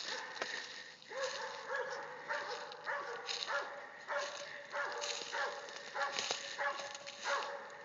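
Cur hog dogs barking repeatedly at bay, about two barks a second, keeping a wild hog stopped.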